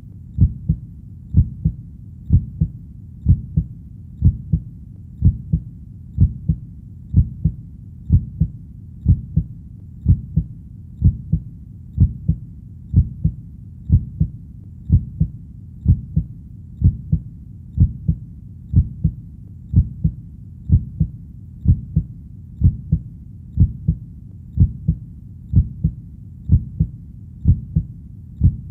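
Heartbeat sound: a steady, even rhythm of deep double thumps (lub-dub), about one beat a second, with no change in pace or loudness.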